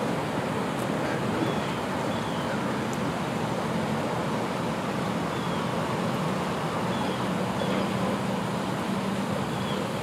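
Steady outdoor background noise, an even rushing rumble like distant road traffic, with a faint low hum coming in around the middle.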